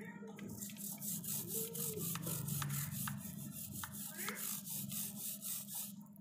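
Toothbrush bristles scrubbing a diesel-soaked motorcycle drive chain in quick back-and-forth strokes, a repeated rasping rub.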